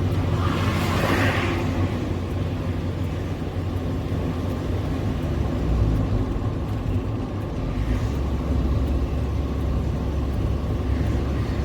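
Loaded truck engine running steadily under way, a low drone mixed with road noise, with a brief hiss about a second in.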